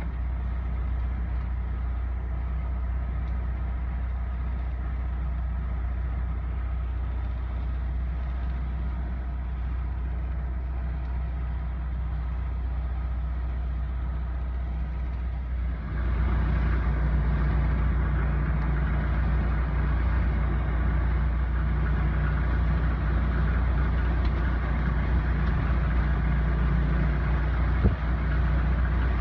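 Jeep engines running steadily at low revs, with no sharp revving. About sixteen seconds in, the sound switches abruptly to a louder, steady engine drone.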